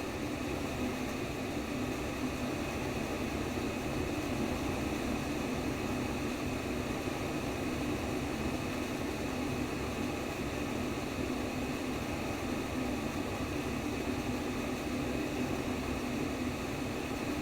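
Steady white noise for baby sleep: an even rushing hiss over a deeper hum, unchanging throughout.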